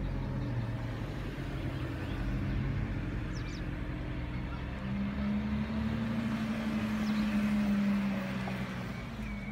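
Lotus sports cars rolling slowly past at low revs. The engine note grows louder about halfway through as a red Lotus Exige, with its supercharged V6, passes close by.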